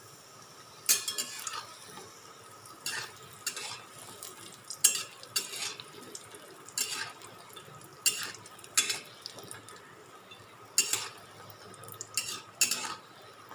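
Daler bori (sun-dried lentil dumplings) frying in hot oil in a wok, with a faint sizzle. A metal spatula stirs them, scraping and knocking against the pan in irregular strokes.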